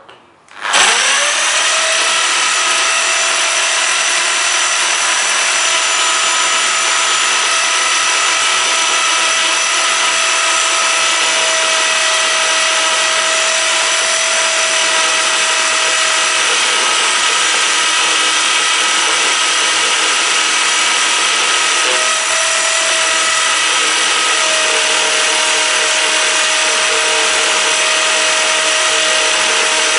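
Power drill running at a steady speed, its bit grinding into a smartphone's glass screen; it starts up about a second in, with a steady whine over the grinding noise.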